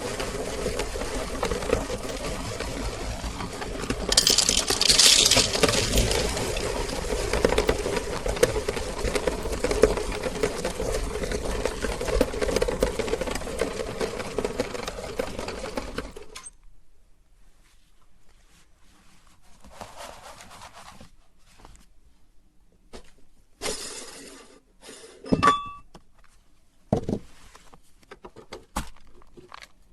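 Meat grinder running steadily while grinding M&M candies, stopping abruptly about halfway through. Afterwards there are a few scattered clinks and knocks.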